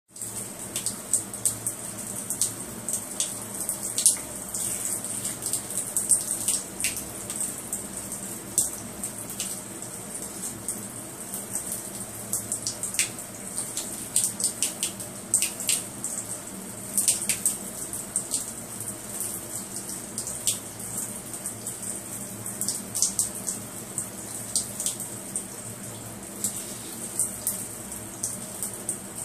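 Thin stream of tap water running and splashing onto a small turtle's shell and the tiled floor: a steady splatter with frequent irregular sharper splashes.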